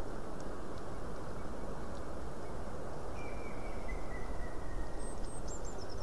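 Steady wind noise in the pines, with a faint distant woodpecker call: a whistled series falling slightly in pitch over about two seconds from the middle on. Near the end a few high, thin tit calls follow in a quick falling run.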